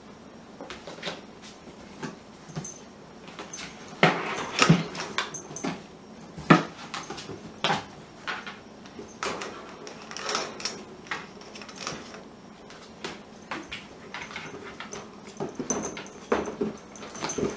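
Cardboard boxes knocked, thumped and scratched by a playing kitten: irregular knocks and scrapes, with a cluster of louder thumps about four seconds in and another sharp one at about six and a half seconds.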